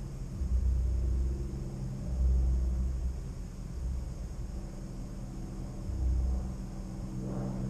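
Low, steady hum of an idling vehicle engine, with deep rumbling surges every second or two.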